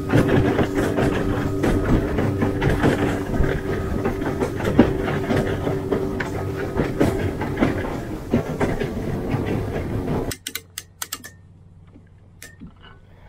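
Small boat's outboard motor running at speed, with a steady whine and the hull slapping over wind chop, under heavy wind noise. About ten seconds in, it cuts to a much quieter scene with a quick run of sharp clicks from a hand-cranked boat trailer winch.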